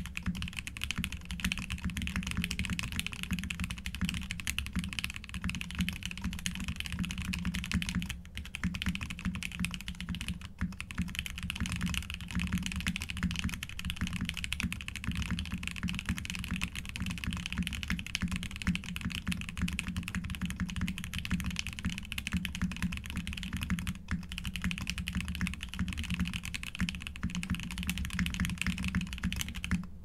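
Mechanical keyboard with TTC Flame Red linear switches being typed on steadily, a continuous patter of keystrokes with a few brief pauses. The switches have a smooth, neutral sound, neither particularly loud nor silent.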